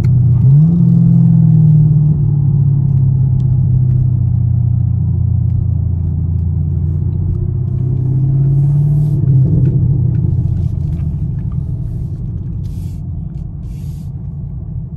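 Straight-piped 6.2-litre V8 of a sixth-generation Camaro SS running at low speed, heard from inside the car. Its pitch rises briefly at the start, then slowly drops as the car rolls along, with a short blip of revs about nine seconds in before it eases off.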